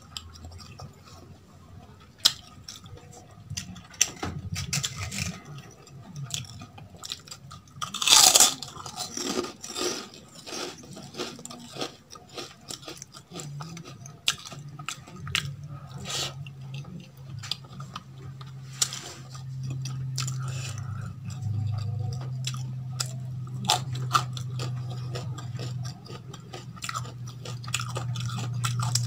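Close-up eating by hand: fingers mixing rajma curry into rice on a steel plate, with wet squishing and clicks, and chewing with crunches. The loudest crunch comes about eight seconds in.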